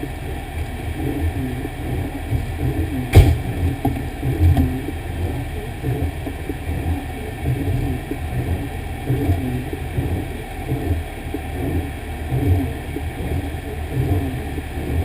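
Fire engine running on the road, a steady low rumble that rises and falls unevenly, with a single sharp knock about three seconds in.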